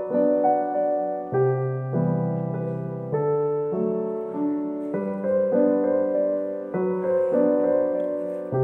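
Background piano music: a gentle piano tune, with chords and melody notes struck and fading.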